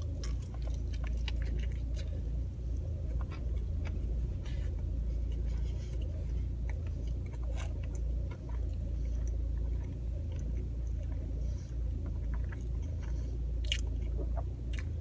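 A person chewing and biting into a breaded fried chicken sandwich, with scattered wet clicks and small crunches, over a steady low rumble inside a car.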